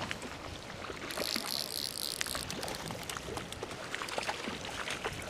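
Flowing stream water with small splashes from a hooked rainbow trout at the surface. Just after a second in comes a short run of about five high-pitched pulses.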